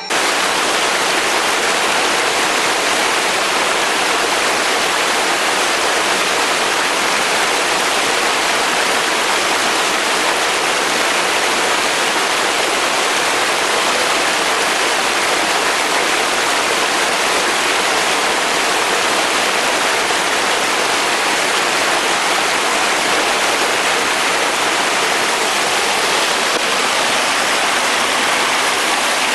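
Rain-swollen, muddy stream rushing down a rocky cascade: a steady, loud rush of water.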